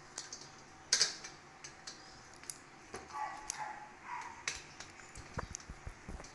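Irregular metallic clicks and ticks of an Allen key turning the screws of a stainless steel dish rack's brackets as they are tightened, with one louder clack about a second in.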